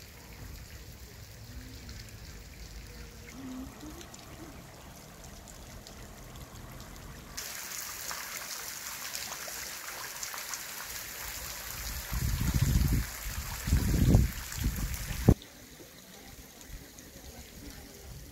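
Brine trickling and dripping down the brushwood (blackthorn twig) walls of a salt graduation tower into the basin below, a steady hissing patter. It grows much louder partway through and then drops back abruptly, with a few loud low rumbles near the end of the louder stretch.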